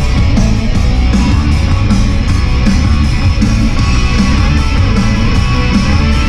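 Loud, fast punk rock song with strummed distorted electric guitars over a steady beat.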